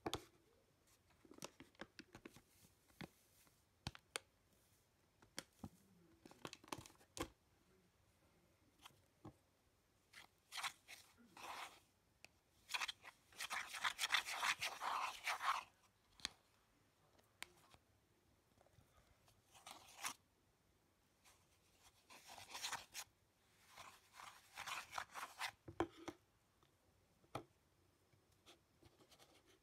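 Spatula stirring and scraping a thick white dough-like mixture around a plastic bowl, in intermittent scraping bursts. The longest and loudest comes about 13 to 16 seconds in, with another stretch from about 22 to 26 seconds.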